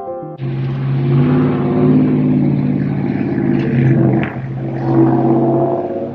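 A motor engine running loudly, starting abruptly about half a second in, its pitch dipping briefly a little after four seconds in and rising again just after.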